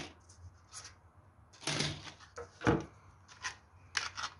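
Plastic model-building wall pieces being handled, slid and set down on a paper-covered tabletop: a few scattered rubs and light taps, the sharpest about two and a half seconds in.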